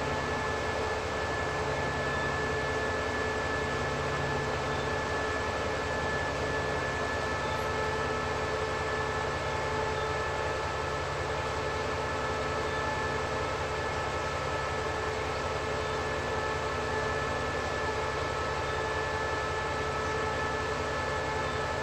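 Diesel-electric locomotive standing with its engine idling: a steady low engine hum with a steady high whine on top.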